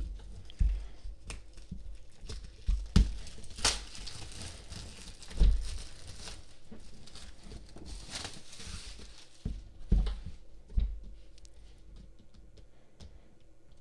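Clear plastic shrink-wrap being torn and peeled off a cardboard laptop box, crinkling in irregular spells, with several soft knocks as the box is handled.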